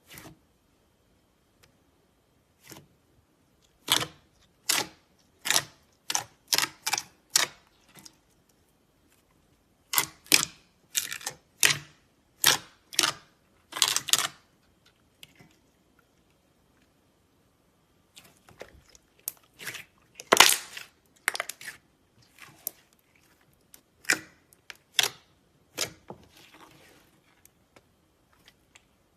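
Metallic slime being pressed and poked by hand, giving sharp sticky pops and clicks in quick runs with short quiet pauses between them.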